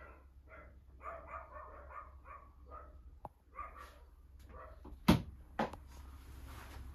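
Faint short animal cries in quick succession, with a sharp knock about three seconds in and a louder one about five seconds in, over a low steady hum.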